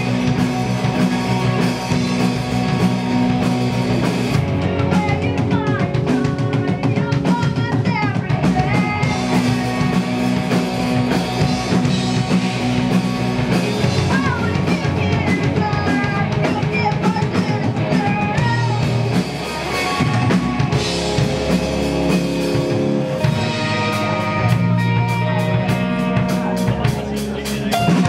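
Live rock band playing at full volume: drum kit, electric guitars and bass, with a vocalist singing over them.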